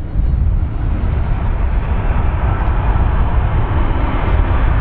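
Twin-engine widebody jet airliner's engines running on the runway, a steady low rumble.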